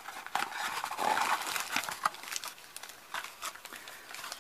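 A small cardboard box being opened by hand and a plastic bag pulled out of it: rustling and crinkling of card and plastic, with scattered clicks.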